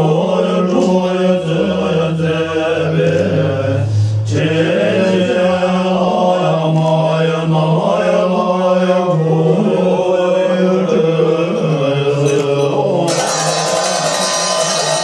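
Tibetan Buddhist monks chanting in unison in low, sustained voices. Near the end, ringing bells and a fast metallic rattle start up over the chant.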